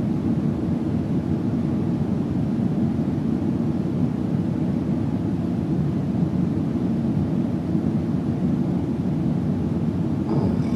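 A steady low drone with no breaks or breathing rhythm, mostly deep rumble.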